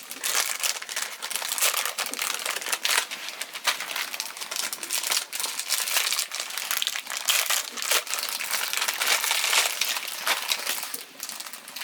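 Plastic instant-noodle packets crinkling and rustling as they are handled, a dense run of small crackles that never lets up.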